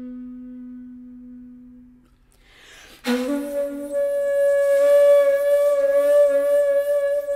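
Background music on a flute-type wind instrument: a low held note fades away about two seconds in, then after a breathy rush a higher note comes in sharply about three seconds in, bends up a little and is held steady.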